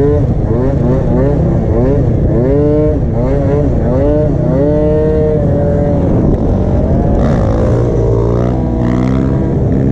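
MBK Booster scooter's two-stroke Minarelli engine, running on a size-100 main jet, revving up and down in quick blips about twice a second. About halfway through it holds one steady note, then drops to a lower pitch.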